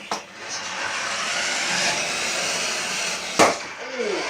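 Small electric motors of remote-control toy cars whining, rising and falling in pitch as they speed up and slow down. A sharp knock about three and a half seconds in.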